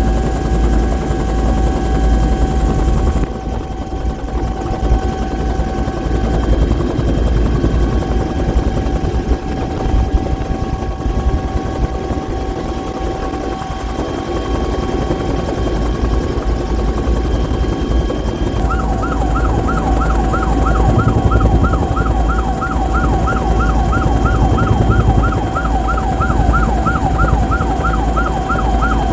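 Bell 212 helicopter's twin turbine engine running, a heavy rumble under several steady whining tones. About two-thirds of the way through, a fast, regularly repeating warbling tone starts up and continues over the engine noise.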